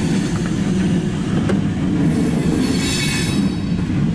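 Open-top freight cars of a CSX maintenance-of-way train rolling past: a steady low rumble of steel wheels on rail. A single sharp click comes about a second and a half in, and a faint high wheel squeal rises near the end.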